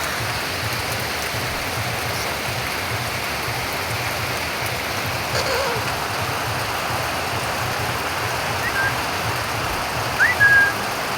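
Steady rain falling. A bird gives a few short whistled chirps near the end, the loudest a quick rising whistle held briefly about ten seconds in.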